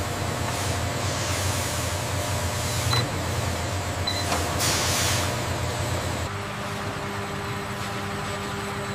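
Steady factory machinery hum with a rushing hiss of liquid latex pouring into a steel tank. Two short high beeps come about three and four seconds in. About six seconds in the rush and low hum give way to a quieter, steady electric hum.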